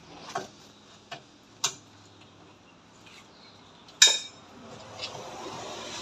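A few sharp metallic clinks and knocks of hand tools against metal, the loudest about four seconds in, with a steady background noise that gets louder after it.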